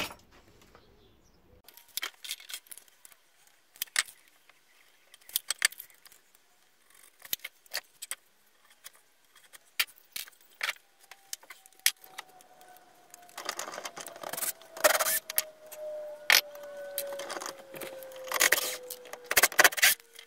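Hand tools and timber being handled at a workbench: scattered sharp clicks, knocks and light metallic clinks. In the second half come longer bursts of rasping noise.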